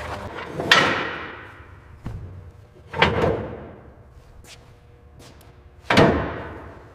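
Three heavy impacts, about two and a half to three seconds apart, each ringing and dying away over about a second.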